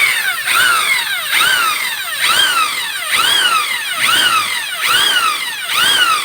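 Electric drill motor whining, its pitch rising and falling over and over about every 0.8 seconds as the trigger is pulsed.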